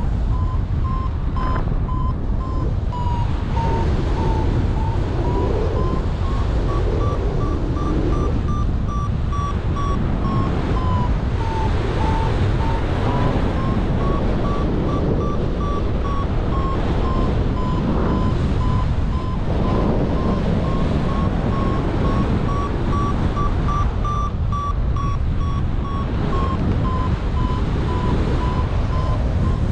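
Paragliding variometer beeping rapidly without a break, its pitch drifting up and down around a high tone as the climb rate changes, which signals the glider climbing in lift. Heavy wind noise on the microphone runs underneath.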